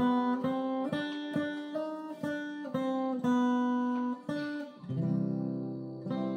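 Acoustic guitar strummed in a steady rhythm of chords, about two strokes a second, settling on a chord left ringing about five seconds in.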